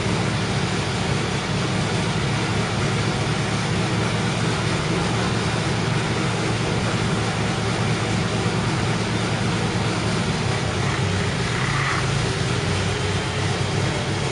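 Engine of a stationary tracked self-propelled gun idling steadily, an even low-pitched engine note that holds constant throughout.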